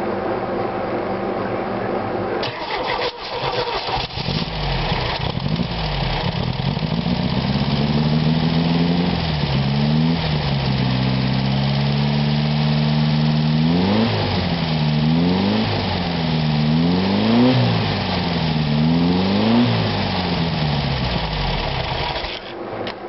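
Volkswagen Beetle air-cooled flat-four engine, run on a stand, turning over and catching about three seconds in, then running and settling to an idle. Near the middle it is revved by hand at the carburetor in five quick blips, and it shuts off just before the end. The engine is running again after sitting a long time.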